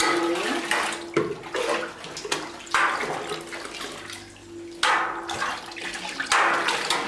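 Liquid splashing and pouring as plastic jugs are dipped into and poured from a stainless steel cheese vat of curds and whey, in several separate pours. This is the curd-washing stage of Gouda making, where whey is drawn off and water is added to the curd.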